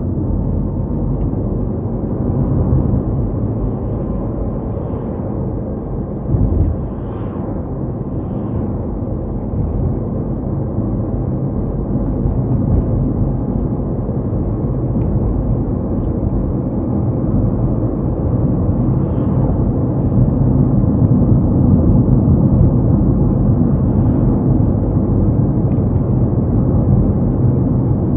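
Car driving along: a steady low rumble of engine and tyre noise, with a short thump about six seconds in, getting louder from about twenty seconds in.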